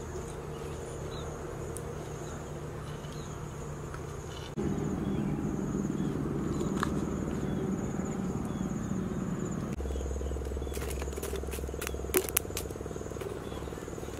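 Steady high trill of insects, over a low background hum that shifts abruptly twice. A few sharp clicks or taps come near the end.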